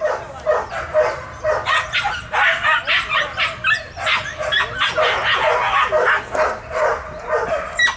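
Dog barking rapidly and excitedly at a decoy in a bite suit during protection training, about two to three barks a second, mixed with high yips.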